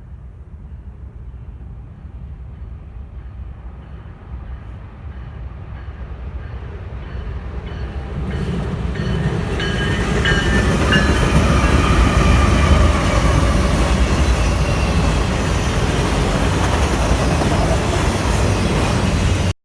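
Train approaching and passing: a low rumble that grows louder over about ten seconds, then stays loud with the clatter of the wheels on the rails and faint high squeals. It cuts off suddenly at the end.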